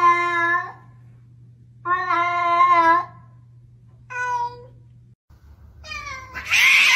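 Domestic cat meowing in long, drawn-out calls, two long meows and a short one, then a louder, harsher cat yowl near the end that slides down in pitch.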